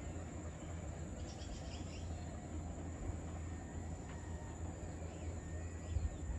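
Evening outdoor ambience: insects trilling steadily at a high pitch over a low, steady rumble, with a few short bird chirps about a second in.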